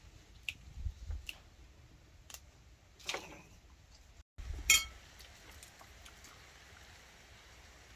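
Fresh greens being picked by hand over a steel bowl: scattered light clicks and soft rustling. About halfway through there is one louder, sharper click, then only faint background.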